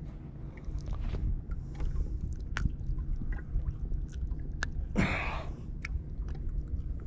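A live redfish being handled: irregular clicks and rustles over a low wind rumble on the microphone, with one louder rushing burst about five seconds in.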